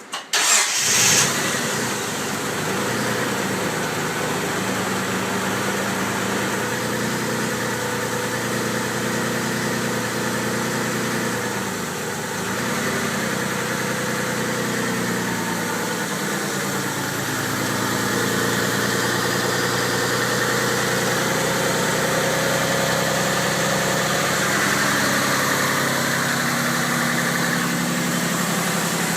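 1992 Mitsubishi 3000GT VR4's twin-turbo 3.0-litre V6 starting up about half a second in, with a brief loud flare before settling to a steady idle.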